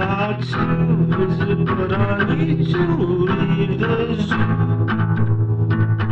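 Music from a song: held low bass notes under stacked higher instrumental parts, playing steadily.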